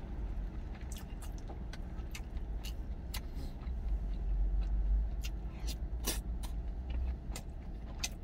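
A wooden spoon scrapes and knocks against a stainless steel food container in a series of short clicks while food is being chewed, over the low steady hum of an idling truck engine.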